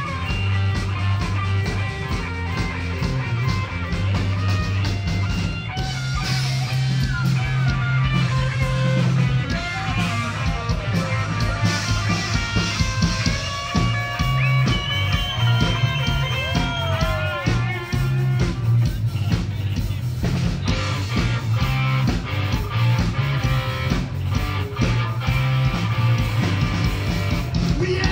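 A live punk rock band plays loudly: electric guitars over a heavy bass line and a steady drum beat. There are sliding, bending notes around the middle.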